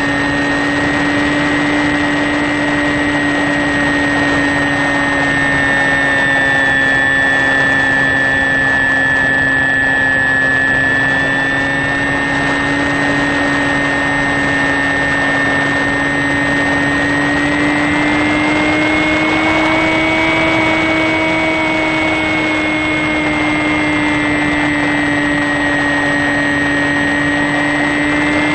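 HK Sky Eye RC plane's electric motor and propeller running at steady cruise, heard through its onboard camera: a constant whine with a high tone that edges slightly up in pitch about two-thirds of the way through, over a wash of wind noise.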